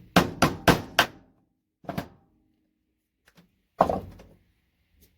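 A chisel knocking against plastic RJ45 ethernet connectors: four quick, sharp knocks in the first second, another about two seconds in, and a heavier knock near four seconds.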